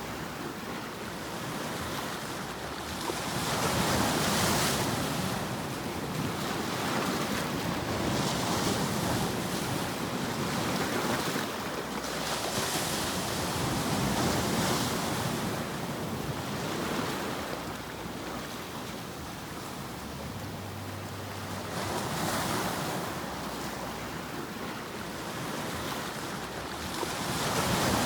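Ocean surf: a continuous wash of breaking waves that swells and ebbs every few seconds.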